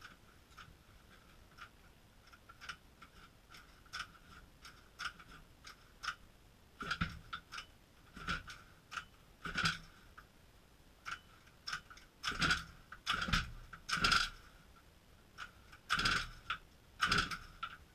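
Recoil pull-starter of a modified 29cc two-stroke engine in a Losi 5ive-T RC truck, yanked over and over. Short, faint pulls come first, then about eight harder pulls in the second half, each a brief rasping whirr as the engine turns over. The engine does not catch.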